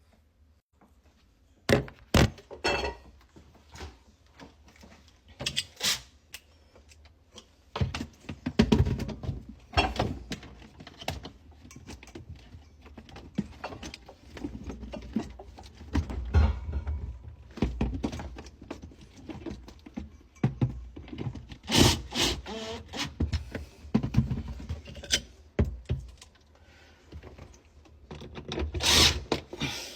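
A series of irregular thunks, knocks and clattering, with low rumbling handling noise in between.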